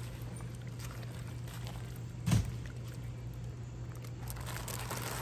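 Collard greens being stirred in a steaming cast-iron Dutch oven, with one loud knock about two seconds in, over a steady low hum.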